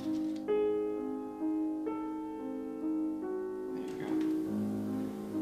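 Slow piano music: a melody of single held notes over sustained lower notes, each note changing every half second to a second.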